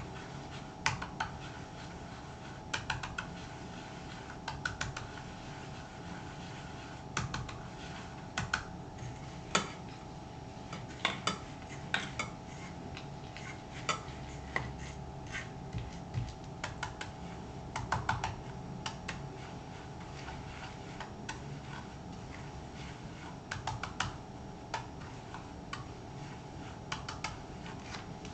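Light, irregular clicks and taps of a brush, tin and other small objects being handled during saddle-soap cleaning of a leather boot, over a steady faint hum.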